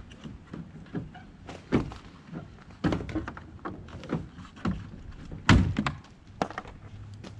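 Plastic upper bumper cover of a 2014 Chevy Silverado being pulled off its snap-in retaining clips: a series of sharp knocks and clicks, the loudest about five and a half seconds in.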